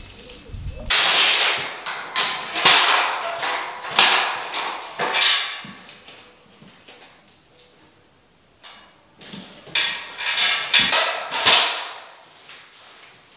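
Scraping strokes of a metal taping knife spreading joint compound over plasterboard joints. They come as a run of quick swipes, then a pause, then another run.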